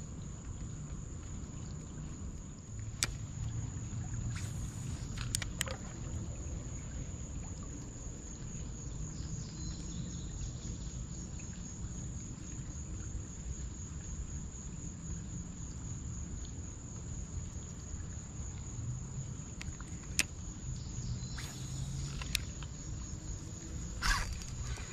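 Creekside outdoor ambience: a steady low rumble with a thin, steady high-pitched insect drone, broken by a few sharp clicks and a short louder burst of noise near the end.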